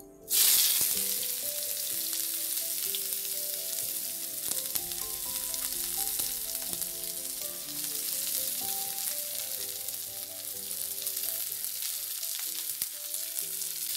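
Sliced onions hitting hot mustard oil with cumin seeds in a kadai: a loud sizzle bursts in about half a second in, then settles into steady frying.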